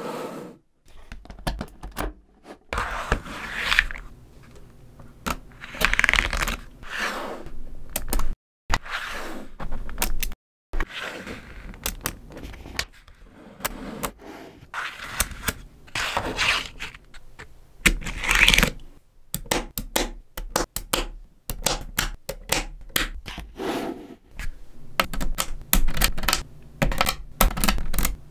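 Small magnetic balls clicking and clattering as they snap together under the fingers, in quick irregular runs of sharp clicks. A few longer sliding, rattling passes come as sheets of balls are moved across the tabletop. The sound drops out abruptly twice.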